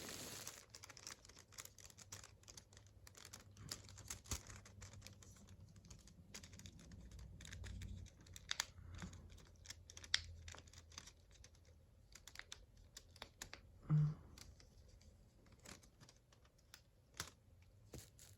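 Faint, scattered light clicks and taps of a small packaged item and its plastic zip bag being handled, with a brief low hum about fourteen seconds in.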